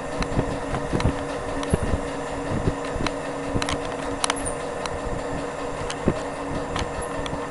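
Centrifugal fan impeller spinning during dynamic balancing: a steady mechanical hum with a constant low tone, with scattered clicks and knocks.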